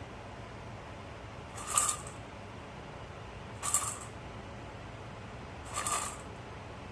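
Automatic pet feeder dispensing kibble: short rattling bursts as food drops out, repeating evenly about every two seconds, three times.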